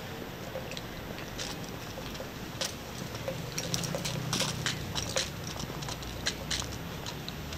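Steady outdoor background noise with irregular sharp clicks and taps scattered through it, and a low rumble that swells in the middle.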